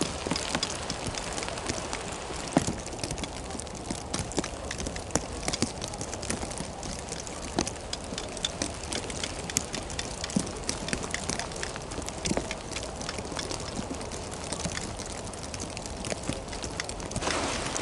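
Wind and blowing snow on open ice: a steady rush with many small, sharp ticks scattered through it.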